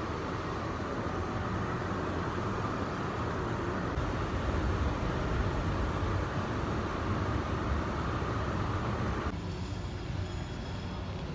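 Steady rumble and hiss of a moving train carriage, such as an airport people-mover; the hiss drops away about nine seconds in while the low rumble continues.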